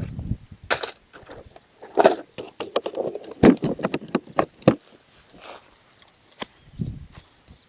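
Irregular clicks, knocks and rustles of footsteps and gear being handled while on the move, densest in the first half.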